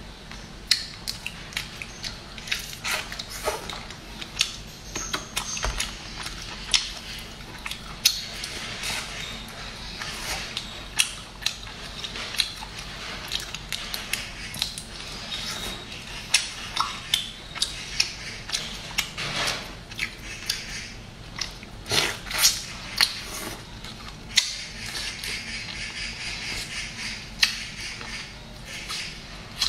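Cooked crayfish shells cracking and crackling as they are twisted apart and peeled by hand, with chewing: many sharp clicks at irregular intervals.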